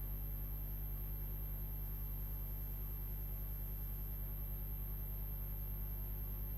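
Steady low electrical hum with a stack of even overtones and a faint high whine, unchanging throughout: mains hum in the sound feed.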